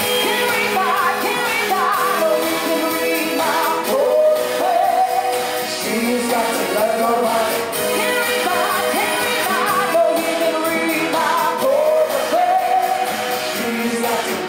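Live pop band playing with a singer on vocals, drums and electric guitar, amplified through a PA system.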